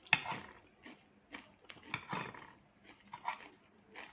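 Chewing a mouthful of raw leafy vegetable salad, with irregular short crunching and mouth sounds.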